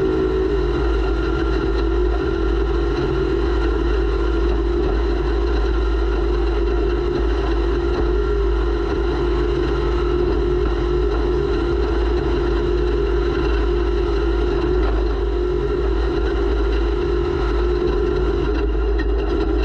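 Racing snowmobile engine running at high, nearly steady revs, heard from a camera mounted on the sled.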